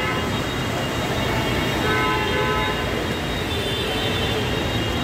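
Steady rush of heavy rain and floodwater on a waterlogged street with traffic running through it, and vehicle horns honking now and then.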